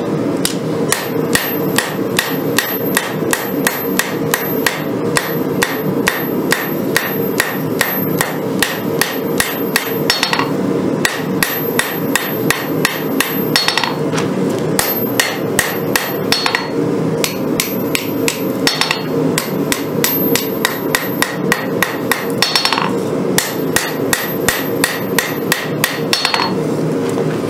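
Hand hammer striking a red-hot Damascus steel bowie blade on an anvil, about three blows a second in runs broken by short pauses, each blow with a high ring from the anvil. This is the forging of the blade's profile, heard over a steady low background hum.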